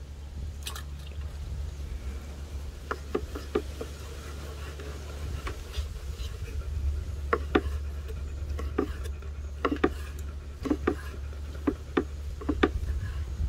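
Kitchen knife slicing a grilled tomahawk steak on a wooden cutting board: irregular clicks and knocks of the blade against the board, over a steady low hum.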